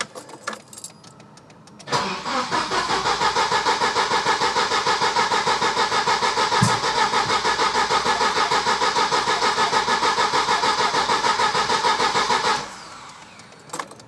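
Volvo B230FK redblock turbo four-cylinder being cranked over by its starter for about ten seconds, a steady rhythmic churning that never catches, then stopping suddenly. It does not fire because its ignition wires were wrongly fitted, as the owner later found.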